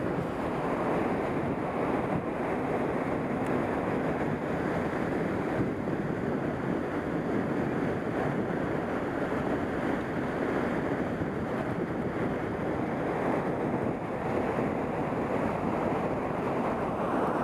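Steady rushing of flowing river water, an even noise without a break.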